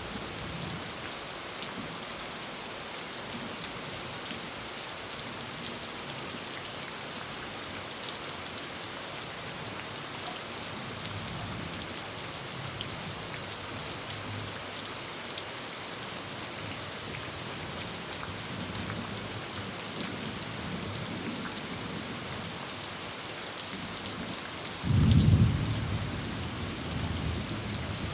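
Heavy rain falling steadily on a tin roof. Near the end comes a sudden loud clap of thunder, followed by a low rumble.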